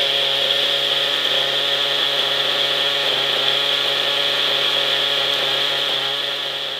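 OS 50 Hyper nitro glow engine of a Hirobo SDX 50 RC helicopter running at a steady speed with the main rotor turning, a high buzzing whine that fades out near the end.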